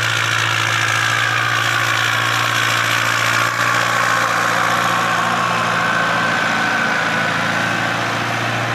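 Ford 7810 tractor's diesel engine running steadily under load while its front blade pushes soil, its note sagging slightly over several seconds.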